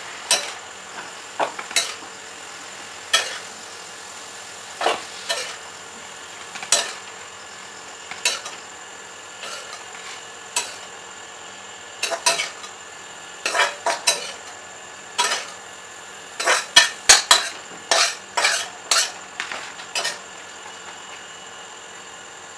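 Cut boiled vegetables being served into a plastic bowl: a run of sharp, irregular clicks and clatters that come thickest about three-quarters of the way through, over a steady faint hiss.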